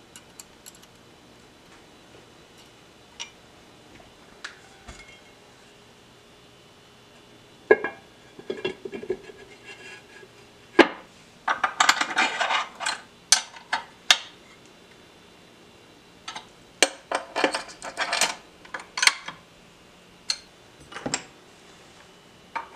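Metal engine parts and tools clinking and clattering against each other and against the aluminium crankcase as they are handled and fitted during assembly. Irregular sharp clicks, sparse at first, busiest in the middle and again later.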